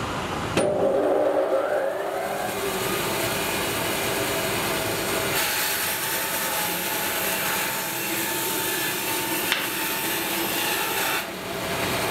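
Felder band saw switched on with a click and spinning up, then running steadily. From about five seconds in, it crosscuts a wide glued-up hardwood panel fed on a sliding table, with a rasping cutting noise over the motor hum. The cutting noise stops about a second before the end.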